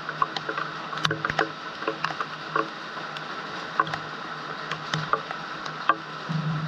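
Rain pattering, with irregular sharp drips striking close by over a steady hiss and a steady low hum.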